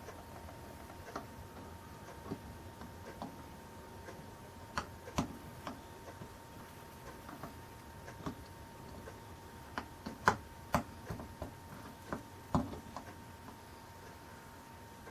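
Irregular light clicks and taps of a soldering iron working solder along the joints of a stained-glass panel, a few per second at the busiest near the middle. A faint steady high tone runs underneath.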